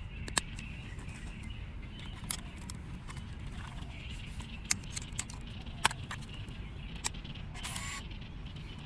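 Scattered sharp clicks of a 35 mm autofocus film SLR being handled as a roll of film is laid in and the camera back is shut, then a short whir about a second before the end as the motor draws the film on. A steady low outdoor rumble lies under it.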